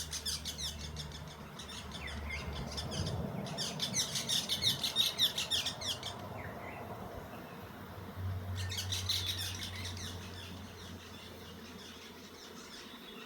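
Birds chirping in three rapid chattering bursts over a low steady hum from a disturbed honeybee swarm.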